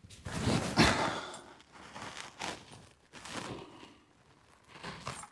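Handling noises: rustling and clattering bursts, loudest just under a second in, followed by several smaller knocks and rustles.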